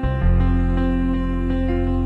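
Soft, slow background music of sustained instrumental notes, with a chord change just after the start.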